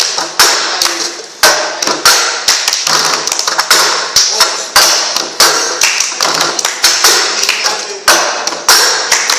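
Cups knocked, tapped and slid against a table in a cup-rhythm game: a quick, uneven rhythm of sharp knocks, several a second, with the loudest strokes about once a second.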